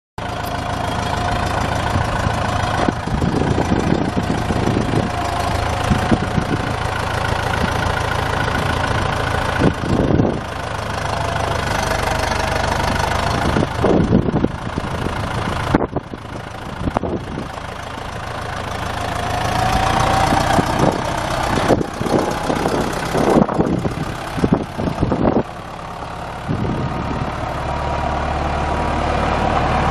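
The New Holland 6640 tractor's four-cylinder diesel engine running steadily, with several sharp knocks and thumps along the way. The engine speeds up and gets louder about two-thirds of the way through.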